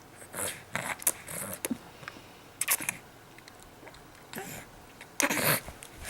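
A baby making a series of short breathy noises, several bursts about a second apart with a pause in the middle, the longest and loudest near the end.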